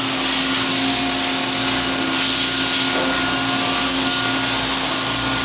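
A machine running steadily: an even, loud hiss with a constant low hum under it.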